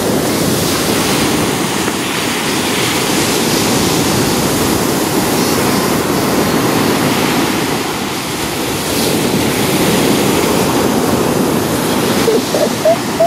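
Ocean surf breaking and rushing onto a sandy beach in a steady, loud wash. A few short pitched sounds come near the end.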